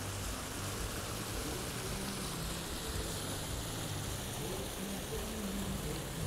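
Steady hiss of water splashing in a public square's fountain, with faint low tones underneath.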